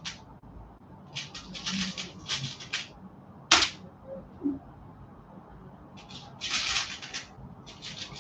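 Handling noise: short groups of rustling and clicking, with one sharp click about three and a half seconds in, as jewellery is handled for display.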